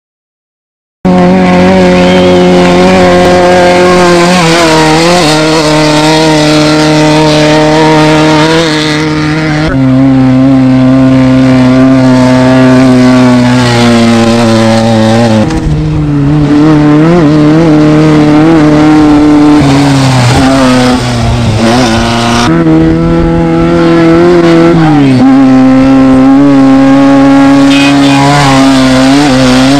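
Off-road race vehicle engine running hard at high revs, very loud, its pitch holding steady for several seconds at a time and dropping in steps a few times.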